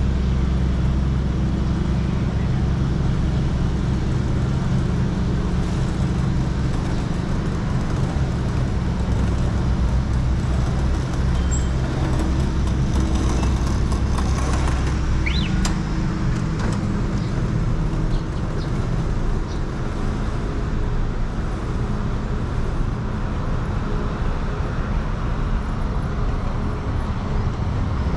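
Street traffic on a busy city road, with a heavy vehicle's low engine drone that fades after about fifteen seconds. About halfway through there is a short rising squeal.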